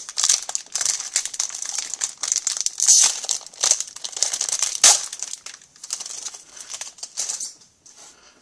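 Foil wrapper of a hockey trading-card pack crinkling and rustling as it is torn open and the cards are handled. The crinkles come fast and unevenly, with two louder crackles about three and five seconds in, and die away near the end.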